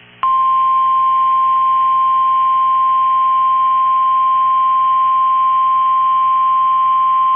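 NOAA Weather Radio's 1050 Hz warning alarm tone: one loud, steady pure tone that starts a moment in and holds unchanged. It is the alert signal that a severe thunderstorm warning broadcast follows.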